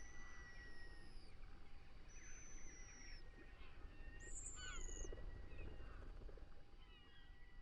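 Birds calling outdoors: several long, thin, slightly falling whistles and a short high chirp about four and a half seconds in, over a steady low rumble.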